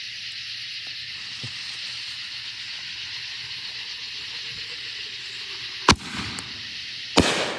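Under a steady high hiss, a Black Cat reloadable mortar shell launches from its tube with a sharp bang about six seconds in. A second loud bang with a short crackling tail follows just over a second later as the shell bursts.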